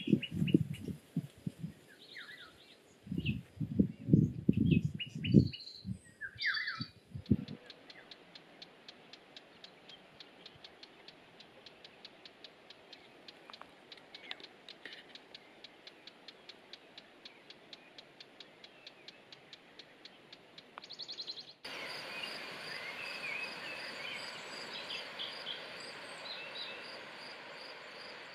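Footsteps on a grassy path with small birds chirping, for the first seven seconds or so. Then a quiet stretch with faint, even ticking about three times a second, and about two-thirds of the way through birdsong comes in over a high, steady pulsing buzz.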